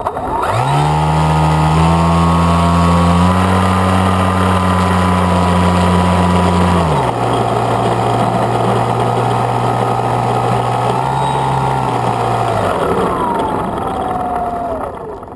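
Skywalker FPV plane's electric motor and propeller spinning up as it taxis, a steady whine that steps up in pitch twice, drops to a lower speed about seven seconds in, rises briefly near eleven seconds, then winds down with a falling whine near the end.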